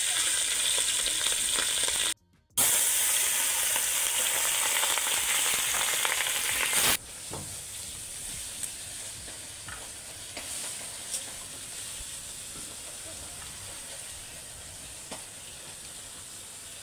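A piece of fish rubbed with turmeric and salt sizzling in hot oil in an aluminium kadhai, with a half-second dropout about two seconds in. About seven seconds in the sizzle stops abruptly, leaving a much quieter background with a few faint clicks of a knife trimming florets off a cauliflower.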